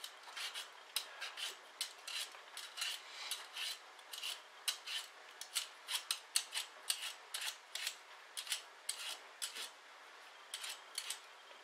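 Metal vegetable peeler scraping the skin off a raw potato: short scraping strokes in quick succession, about two a second.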